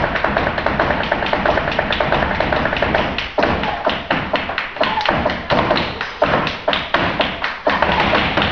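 Flamenco dancer's shoes striking a wooden stage in zapateado footwork: a fast, dense run of taps for about three seconds, then sharper separate stamps with short pauses between them.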